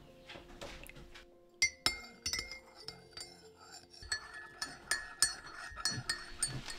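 A metal spoon stirring coffee in a ceramic mug, clinking repeatedly against its inside wall with a bright ring after each tap, starting about a second and a half in.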